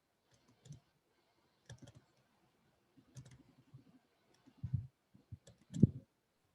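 Scattered, irregular clicks and light knocks, a few a second, with the loudest knock near the end.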